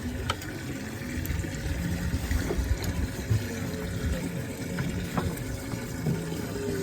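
Water running and sloshing, with a low steady rumble and a few faint clicks.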